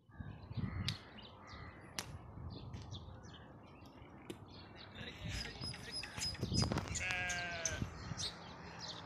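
A single wavering bleat from a farm animal, lasting under a second, about seven seconds in, over scattered short high chirps.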